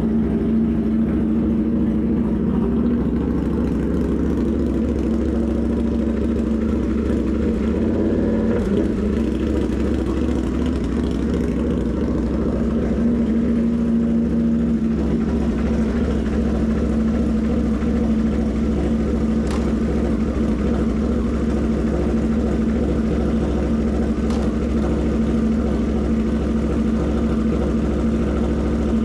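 Indian FTR 1200's V-twin engine idling steadily just after starting, its note shifting slightly a couple of times.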